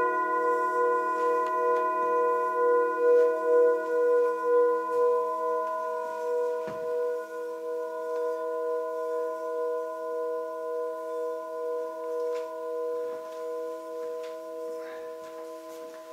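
Brass singing bowls ringing together in several long, steady tones. A small bowl is rubbed around its rim with a wooden mallet and sings with a slow pulsing wobble, while the larger bowls struck a moment earlier go on ringing and slowly fade.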